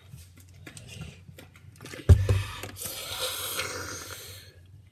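A boy drinking from a plastic water bottle, with faint small clicks, then a sudden loud thump about two seconds in, followed by about two seconds of noisy hiss.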